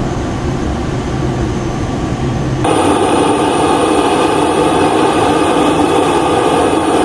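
Steady engine noise inside an Airbus A400M cockpit in flight. About three seconds in, it changes abruptly to the louder, steady sound of the A400M's turboprop engines running on the ground, with a high whine.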